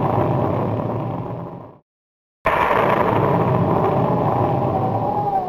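Loud, steady rush of noise that fades out about a second and a half in. After half a second of dead silence it starts again, and near the end a faint high whine slides slowly down through it.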